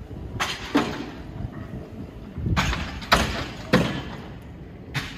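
Knocks and clattering bangs from workers handling materials at a building being readied for demolition: about six hits at uneven intervals, a few of them ringing briefly. Wind rumbles on the microphone underneath.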